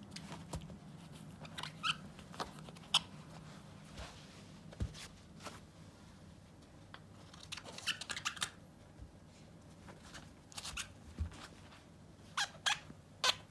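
Shiba Inu chewing and tearing at a fabric-covered ball toy: irregular crunching and ripping sounds in small clusters.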